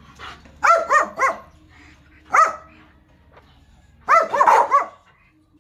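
American bully dog barking in short, sharp barks: three in quick succession, a single bark a little later, then a quick run of several near the end, barking up at the ball its owner holds.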